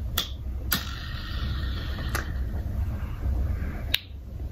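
BeanBoozled spinner flicked with a click, its plastic arrow whirring steadily for about three seconds, with a sharp tap near the end, over a steady low background rumble.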